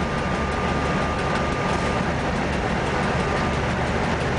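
Cab noise of an ST43 diesel-electric locomotive under way: the diesel engine running and the train rolling on the rails in a steady, dense rumble, with a thin steady whine on top.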